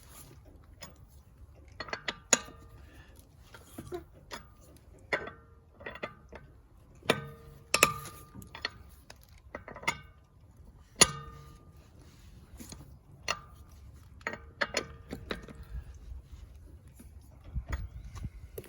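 Lug nut wrench being fitted onto a car wheel's lug nuts and turned to break them loose: irregular metallic clinks and knocks, many ringing briefly, with the sharpest knock about eleven seconds in.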